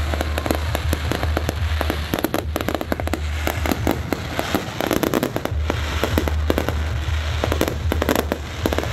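Fireworks show going off: many bursts in quick succession, a dense crackling of pops and bangs over a continuous low rumble.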